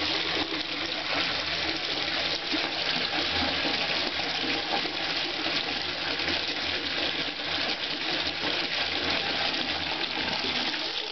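Bathtub faucet running steadily, water pouring from the spout into a partly filled, bubbly tub; the flow cuts off at the very end.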